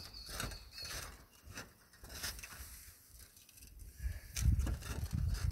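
Light scattered knocks and scuffs of footsteps on roof tiles, then a low rumble about four seconds in.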